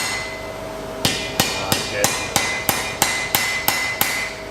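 Hand hammer forging iron on an anvil: after a pause of about a second, a steady run of about ten blows, roughly three a second, each with a bright metallic ring from the anvil and work piece.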